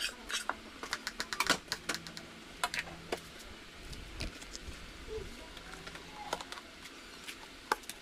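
Light, irregular clicks and clinks of a spatula tapping and scraping in a wok, most of them in the first few seconds, with a faint steady hum underneath.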